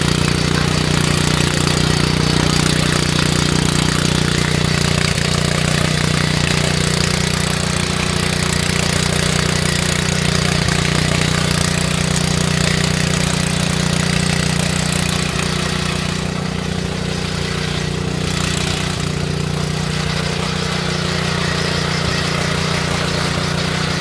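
Oshima XD1 mini tiller's small petrol engine running steadily under load as its rotary tines churn dry, grassy soil.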